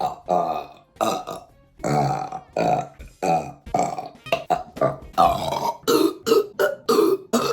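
A woman burping over and over: several long, pitched belches, then a rapid run of short burps, about three a second.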